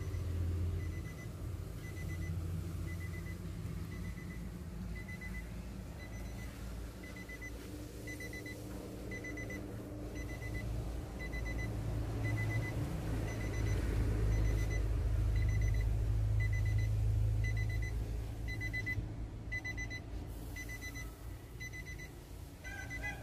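A Nissan Navara's in-cabin warning chime beeping steadily with the doors open, a high tone repeating about once a second, over a low rumble that grows louder midway.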